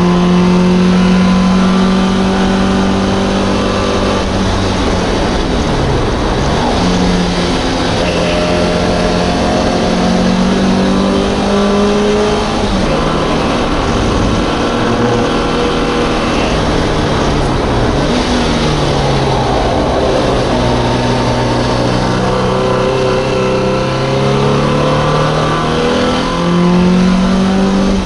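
FiA-spec MGB race car's four-cylinder B-series engine running hard at racing speed, heard from on board. The engine note climbs through the revs and drops sharply several times as the driver shifts gear and brakes for corners.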